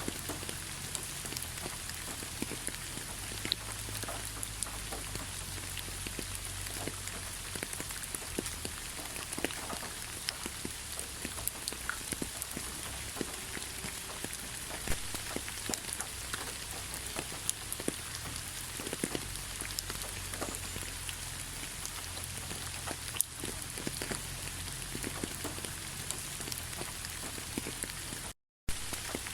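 Steady rain falling on a surface, with many separate drops ticking through the hiss. The sound cuts out for a fraction of a second near the end.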